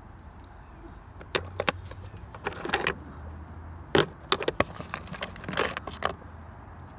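Rough chunks of snowflake obsidian clinking and knocking against one another and the plastic tote as they are picked up and shifted, in a scatter of sharp clacks with short scraping stretches, the loudest about four seconds in. A low steady hum runs underneath.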